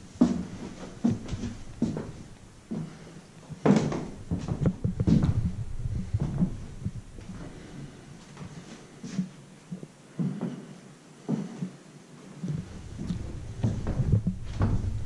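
Irregular soft knocks and thumps, about one a second, with a low rumble: footsteps and handling noise as a handheld action camera is carried through a house.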